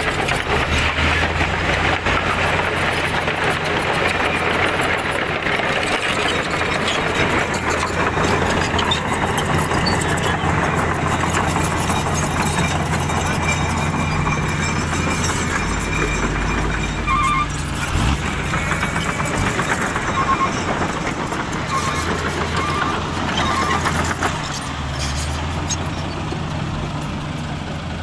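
Diesel engine of a loaded Mitsubishi Fuso dump truck running under load as the truck crawls over soft dirt and its rear wheels sink in. The engine note shifts up and down a few times.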